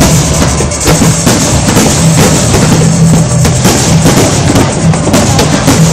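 Loud music with a heavy drum beat, mixed with repeated sharp bangs and crackles of aerial fireworks shells bursting.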